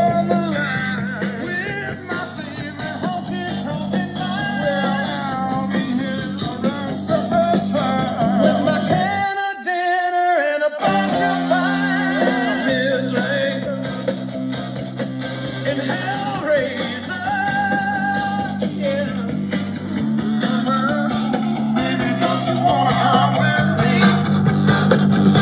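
Rock song with singing and guitar over a steady bass line. About nine seconds in, the bass drops out for a second and a half, then the full band comes back in.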